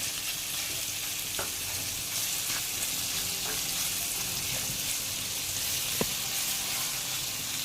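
Curry-marinated shrimp sizzling as they sauté in hot oil with burnt curry powder, with a few light clicks of stirring; one sharper click about six seconds in.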